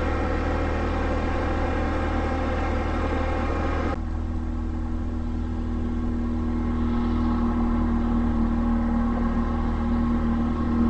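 Can-Am ATV engine running as it climbs a steep dirt road. About four seconds in, the sound cuts abruptly to a steadier drone with one held tone.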